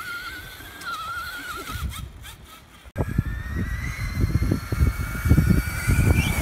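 Electric motor whine of RC monster trucks driving on pavement: a wavering high whine that rises and falls with the throttle. About three seconds in it cuts off abruptly to a steadier, higher whine with heavy low rumbling underneath.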